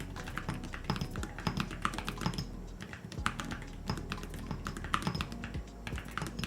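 Typing on a mechanical keyboard fitted with ceramic keycaps on a metal base: a fast, irregular run of keystrokes.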